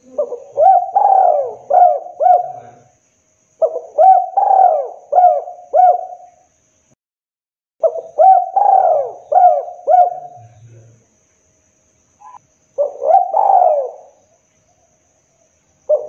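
Spotted dove cooing: four phrases, each a quick run of several coos that rise and fall, with short pauses between them. The fourth phrase is shorter, and a fifth begins right at the end.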